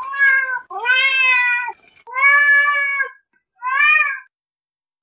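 A domestic cat meowing four times, each meow lasting a second or less, with short silent gaps between them; the last meow is the shortest.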